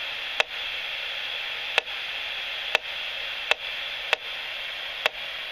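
Audio output of a Gigahertz Solutions HF35C RF analyzer: a steady hiss broken by six sharp clicks at slightly uneven intervals of about a second. Each click is a microwave transmission burst from an Itron C1SR smart meter, which transmits approximately every second.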